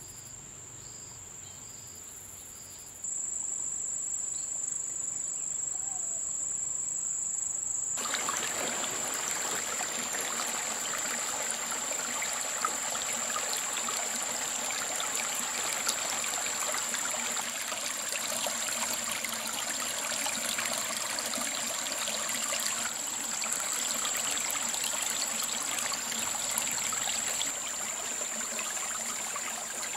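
A steady high-pitched insect drone. From about eight seconds in, the rushing hiss of flowing stream water joins it and continues under it.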